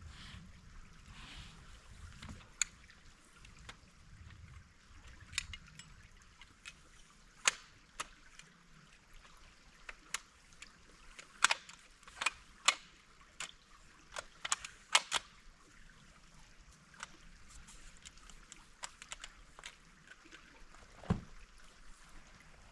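Sharp clicks and knocks at irregular intervals, thickest in the middle, over the faint steady rush of a stream.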